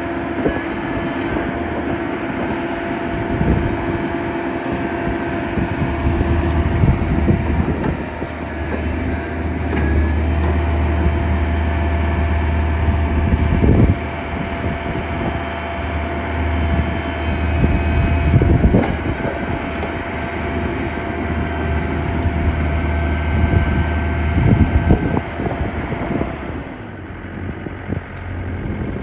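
Takeuchi TB175 compact excavator's diesel engine running with its hydraulics working. A deeper low hum comes in about six seconds in and drops out near the end, with a couple of sharp knocks along the way.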